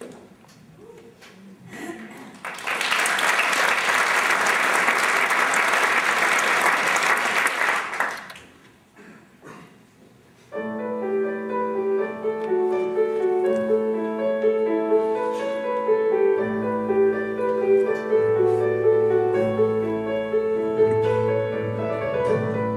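Audience applause for about five seconds, a short lull, then a piano starts playing held chords as a song intro, with a low bass line joining about six seconds later.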